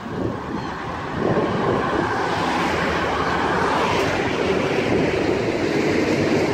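Wind rushing over the microphone of a bicycle-mounted camera while riding along a road, a steady noisy rush that gets louder about a second in.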